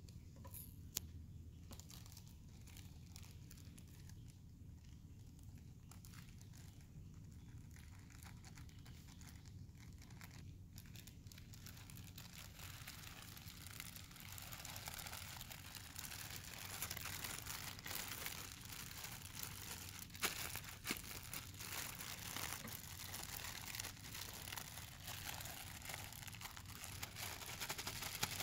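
Plastic zip-top bags of rice crinkling and rustling as they are squeezed and kneaded by hand to work food colouring into the rice. The crinkling is faint and sparse at first and turns dense and steady from about halfway through.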